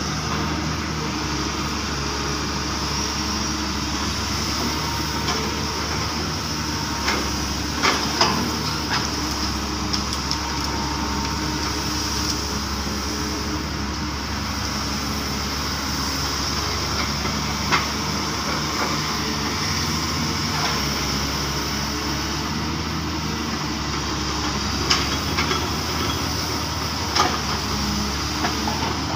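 Hydraulic excavator's diesel engine running steadily while digging, with a few short sharp knocks or clanks, the bucket working in the ditch.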